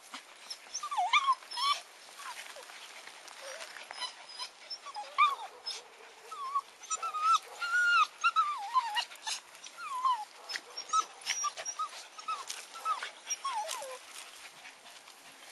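Small terrier-mix dog whining over and over in short, high calls that rise and fall, with scattered sharp clicks.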